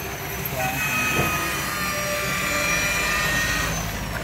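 A steady mechanical drone with a few high whining tones held over it, from running machinery.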